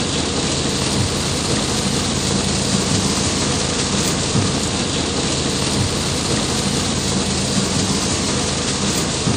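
Heavy tropical downpour: a steady, dense hiss of rain on pavement and pooled water.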